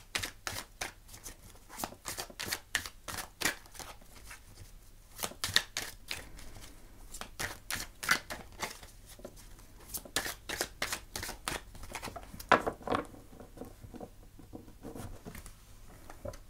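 Deck of oracle cards being shuffled by hand: a rapid, irregular run of soft card snaps and flicks that thins out over the last few seconds.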